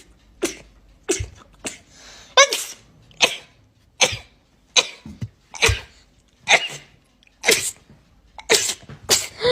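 A girl sneezing over and over: about a dozen short, sharp sneezes in quick succession, roughly one a second.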